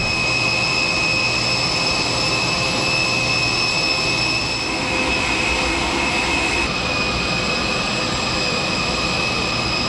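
Jet turbine running steadily: an even rushing noise with a constant high-pitched whine.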